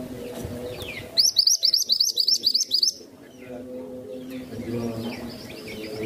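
Minivet (mantenan) singing: about a second in, a loud fast run of high chirps, around seven a second for nearly two seconds, with softer scattered chirps before and after. A low steady tone runs underneath.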